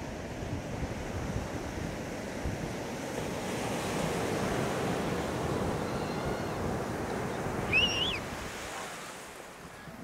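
Small sea waves breaking and washing up a sandy beach. The surf builds to a fuller rush around the middle and eases off near the end. A short high chirp sounds about eight seconds in.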